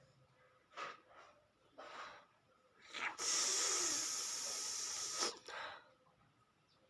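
A person breathing and sniffing hard through the nose while tickling it to provoke a sneeze: a few short sniffs, then a loud, steady hiss about two seconds long that cuts off with a sharp click, and one more short breath. No sneeze comes.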